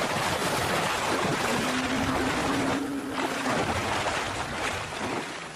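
Forest elephants calling with a loud, harsh, noisy roar that breaks briefly about three seconds in, with a steady low tone underneath for a couple of seconds in the middle.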